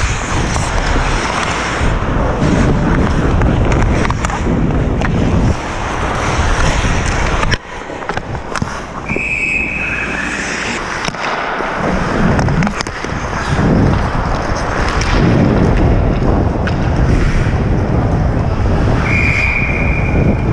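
Ice hockey skating heard from a helmet-mounted camera: skate blades scraping and carving the ice, with wind rushing over the microphone and a few sharp stick or puck clacks. A referee's whistle blows once about nine seconds in, when the goalie covers the puck, and again near the end.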